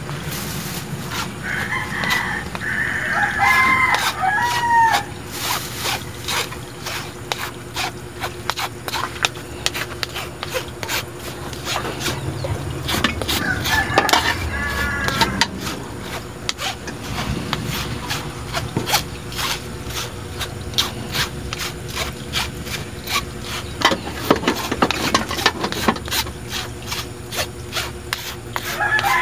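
A metal spoon scraping and pressing flour through the mesh of a plastic strainer, in many short scratchy strokes. A bird calls in the background twice, a few seconds in and about halfway through.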